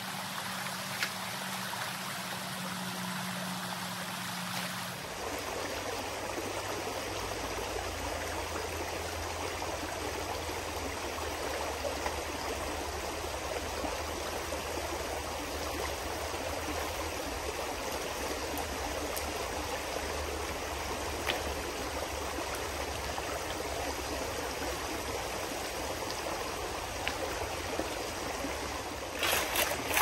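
Shallow creek water flowing steadily over rocks and through a gold sluice box. Near the end, a few sharp splashes and scrapes as a shovel digs into the wet streambed.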